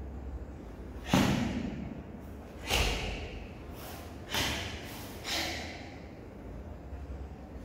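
A karateka's sharp, forceful exhalations with the techniques of a kata: four short, breathy bursts about one to one and a half seconds apart, each starting suddenly and fading quickly.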